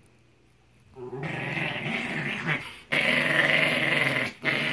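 Yorkshire terrier growling continuously in rough play, starting about a second in with two brief pauses. It is play growling, not aggression.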